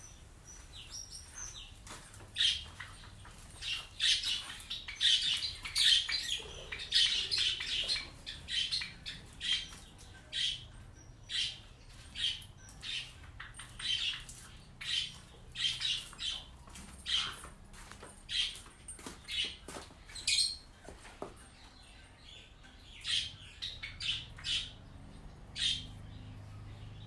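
Bird chirping: short, high calls repeated about once or twice a second, with a brief lull a few seconds before the end.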